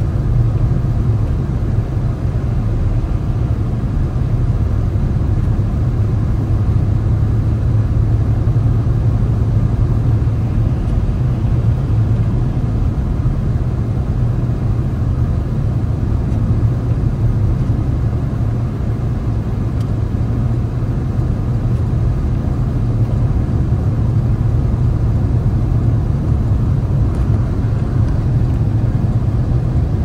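Car driving at a steady speed: a constant low rumble of engine and tyre noise on the road.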